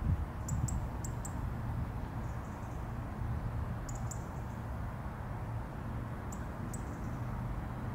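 European robin giving short, sharp tick calls, mostly in quick pairs, several times, over a low steady background rumble.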